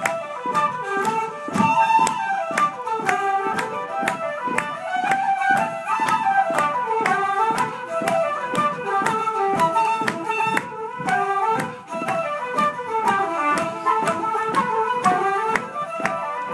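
An ensemble of wooden flutes playing a traditional tune together, over a steady tapping beat.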